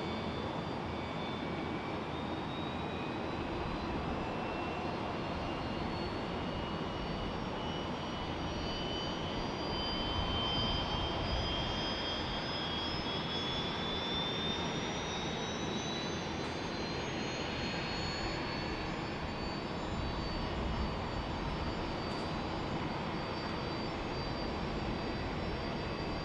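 Jet airliner's engines running on the runway: a steady rush with a high whine that climbs slowly in pitch, until the sound cuts off at the end.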